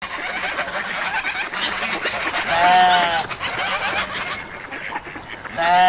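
A chorus of animal calls: many short overlapping chirps and squawks, with a louder drawn-out call about two and a half seconds in and another starting near the end.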